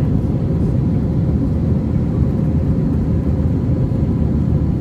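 Steady low rumble of a US Airways Airbus A321 jet airliner climbing after takeoff: engine and airflow noise heard from inside the cabin, unchanging throughout.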